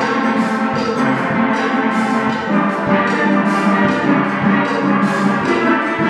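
A steelband playing a tune together: many steel pans struck with sticks in a quick, even rhythm, their pitched notes ringing over one another.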